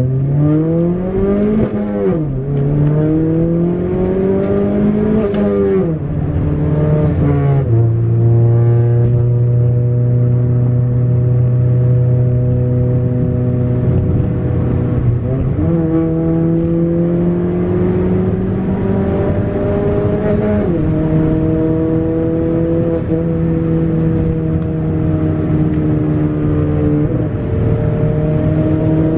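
Turbocharged four-cylinder engine of a straight-piped, full-bolt-on 10th-gen Honda Accord pulling through the gears. The pitch rises and drops sharply three times in the first eight seconds as it upshifts, then it settles into a steady drone while cruising, with another gear change about two-thirds of the way in.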